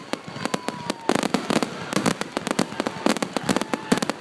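Fireworks finale: rapid, overlapping volleys of bangs and crackling reports, densest about a second in.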